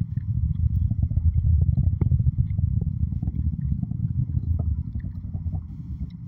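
Distant rocket launch: the engine's deep, ragged rumble with faint crackling, swelling in the first couple of seconds and then slowly fading as the rocket climbs away.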